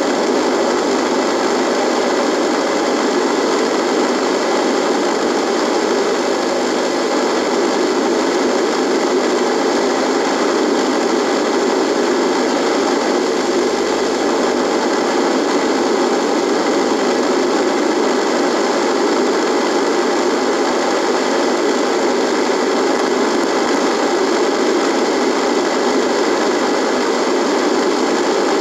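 Radio buzzing with steady static, an even hissing buzz that does not change or break.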